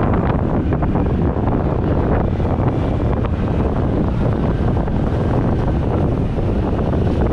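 Heavy wind buffeting the GoPro Hero 8's built-in microphone on a motorcycle rider's helmet at speed, with motorcycle and road noise underneath; no external microphone or mic adapter is used.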